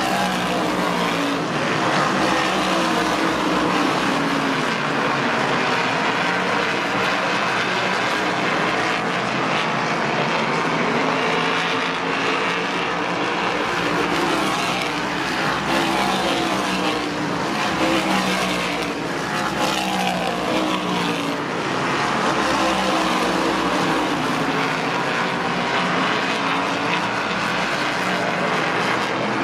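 A field of race cars running laps, their engines rising and falling in pitch as they come past and go round the track, several cars heard at once.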